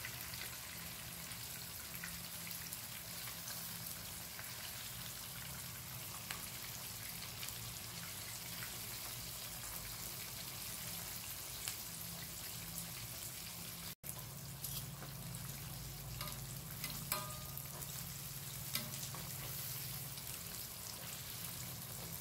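Ikan sultan fish steaks shallow-frying in oil in a wok: a steady sizzle with scattered small pops and crackles, broken by a momentary gap about two-thirds of the way through.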